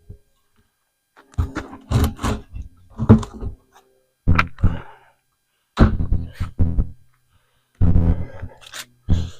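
Clunks and knocks of tools and items being moved and set down in a storage toolbox, in about six separate bursts with silent gaps between them.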